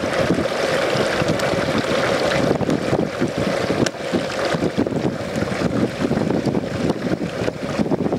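Hot frying oil in a tall aluminium pot boiling and popping hard around a whole turkey as it is lowered slowly in: a dense, steady seething with many small crackles, the turkey's water and moisture boiling off in the 350-degree oil.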